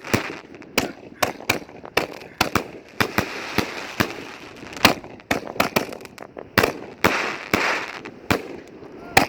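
5-inch canister aerial firework shells launching and bursting in rapid succession: a dense string of sharp bangs, several a second, with a steady hissing wash between them in two stretches.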